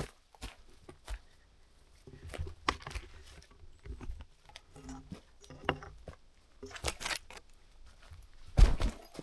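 Footsteps on a forest path: irregular crunches, crackles and snaps of twigs and ground litter underfoot, with a louder thump near the end.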